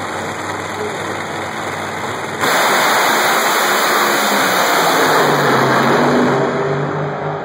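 Two nitro funny cars with supercharged V8s sit at the starting line, then launch at full throttle about two and a half seconds in with a sudden, very loud roar. The roar fades near the end as the cars run away down the track.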